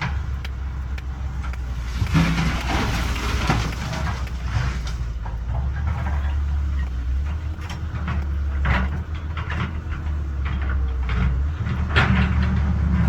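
Caterpillar 320BL excavator's diesel engine running steadily with a deep drone. Rock and dirt clatter for a second or so about two seconds in, and there are sharper knocks near the nine- and twelve-second marks as the excavator works.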